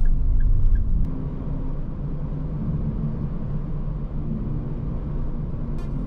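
Steady low rumble of engine and tyre noise inside the cab of a Daihatsu Hijet Cargo kei van cruising on a highway. Background music fades out about a second in.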